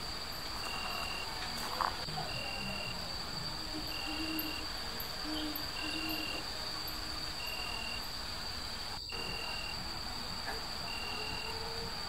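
Night insect chorus: a steady high-pitched cricket trill, with short chirps repeating about once a second and a few faint low notes near the middle.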